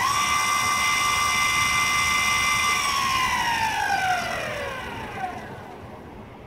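Benchwheel 1800W dual-motor electric skateboard's hub motors spinning the wheels freely with the board upside down. A whine rises as the throttle goes on, holds steady for about three seconds, then falls in pitch and fades as the wheels coast down.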